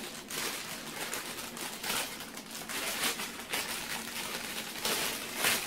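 Clear plastic bag crinkling and rustling as a folded metal light stand is worked out of its wrapping, with a few louder rustles along the way.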